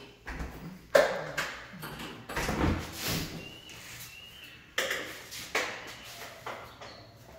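A series of irregular knocks and clicks, the sharpest about a second in, with a few faint short high squeaks between them.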